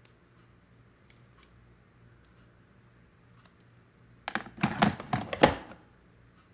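ARC MT-009 rear hub's freehub ratcheting as the wheel or cassette is spun: a few scattered clicks, then a dense burst of rapid clicking about four seconds in, lasting about a second and a half.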